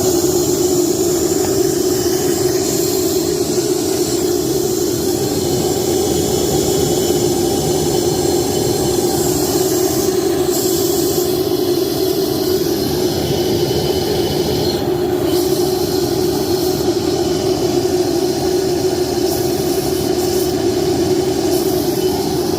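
Homemade steam boiler water injector running on a test rig: a loud, steady rush of steam and water with a strong low drone underneath, unchanging throughout.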